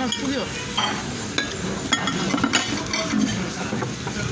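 Chopsticks clicking and clinking against ceramic bowls and plates while food is picked up and stirred, a string of short sharp clicks.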